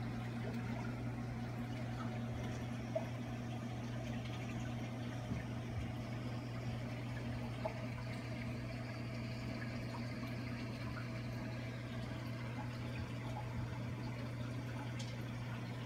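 Reef aquarium's pumps and circulation running: a steady low hum under a constant wash of moving water, with a few faint ticks.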